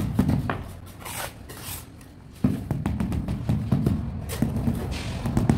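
Rubber mallet tapping a large porcelain floor tile down into its mortar bed: a string of dull knocks, over background music. The sound thins out from about one second in and comes back suddenly about two and a half seconds in.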